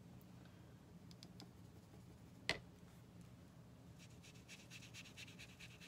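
Near silence, with a single sharp click about two and a half seconds in. From about four seconds in comes a run of faint, quick scratching: a water brush (aqua painter) stroking ink onto watercolor paper.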